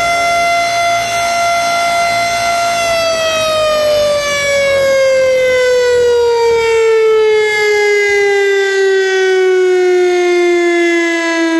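Federal Signal STH-10 electromechanical outdoor warning siren sounding during a monthly test. It holds a steady high tone, then about three seconds in its pitch begins to fall slowly and evenly.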